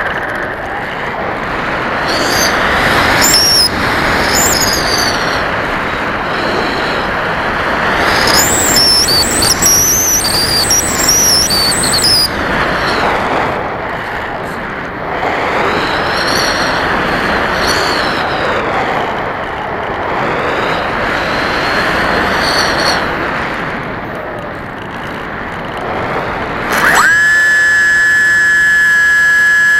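Airflow rushing past an electric foam RC plane (HobbyKing Bixler 1.1) in flight, with the faint whine of its throttled-back brushless motor rising and falling. About 27 s in, the 2620-1900kv brushless outrunner motor and propeller spin up with a quick rising whine and settle into a loud, steady high-pitched whine.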